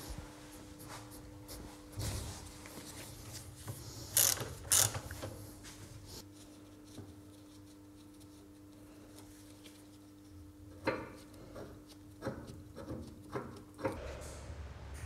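Scattered mechanical clicks and knocks of workshop parts and tools being handled, with two loud knocks about four to five seconds in and a run of clicks near the end. A steady hum sits underneath and stops shortly before the end.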